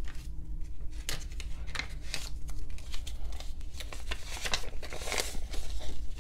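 Paper banknotes rustling and crinkling as hands count and handle them, with many short, irregular crisp snaps.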